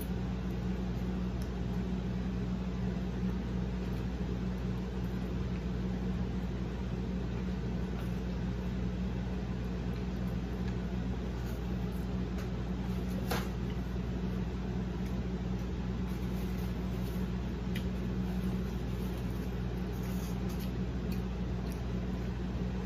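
Steady low mechanical hum from a room appliance, with faint small clicks and mouth sounds from eating a cheeseburger and one sharper click about 13 seconds in.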